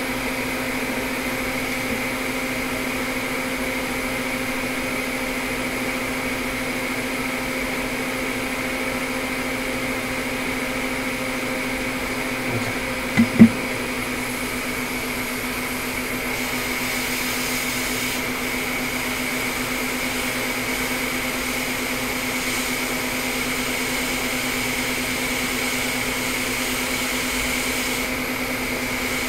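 Steady drone of a fan motor on an electronics soldering bench, running throughout, with a steady hum underneath. A sharp double knock sounds about thirteen seconds in.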